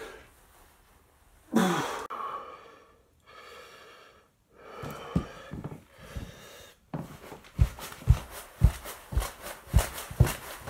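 A person breathing hard, with loud gasping breaths, during a bodyweight workout. From about seven seconds in, bare feet thump on a wooden floor at roughly two beats a second in the rhythm of mountain climbers.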